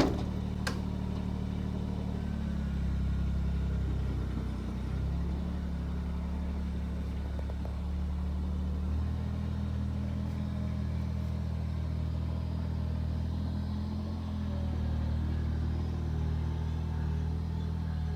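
Kubota BX2380 subcompact tractor's three-cylinder diesel engine running steadily, its pitch shifting a little up and down every few seconds as it works.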